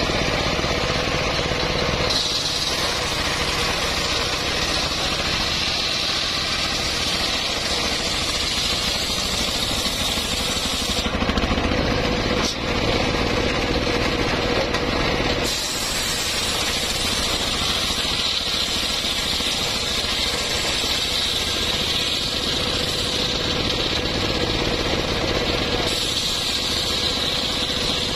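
Home-built circular sawmill, a large circular blade driven by a stationary engine, running steadily while ripping through an old mahogany log. The sound is a continuous mix of engine noise and the blade cutting wood, and it shifts abruptly a few times.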